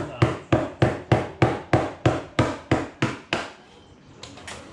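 Hand drywall saw cutting through ceiling drywall in quick, even strokes, about three a second, stopping about three and a half seconds in.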